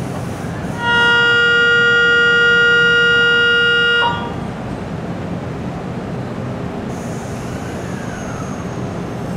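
Kintetsu Series 8A electric train at the platform: its horn sounds in one steady blast of about three seconds over the train's steady hum. Near the end a faint high whine starts from the traction motors as it begins to pull away.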